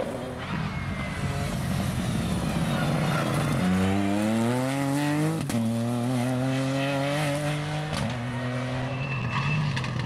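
Ford Fiesta rally car accelerating hard along the stage, its engine note climbing steeply through the gears. Twice, about halfway through and again near the end, a sharp crack comes with a drop in pitch as it shifts up.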